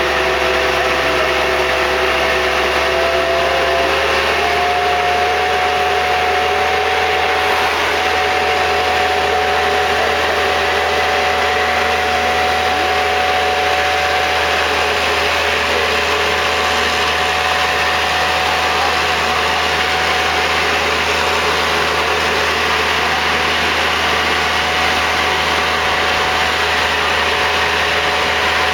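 Finotto self-propelled high-clearance crop sprayer running steadily while spraying, its engine noise carrying a steady whine that steps up slightly in pitch about four seconds in.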